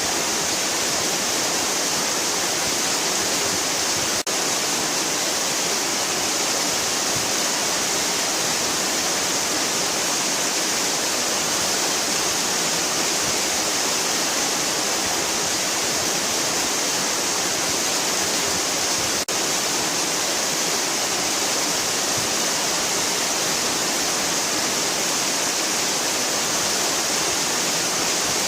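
Waterfall rushing steadily: a dense, even hiss of falling water, unchanged throughout, with two momentary dropouts.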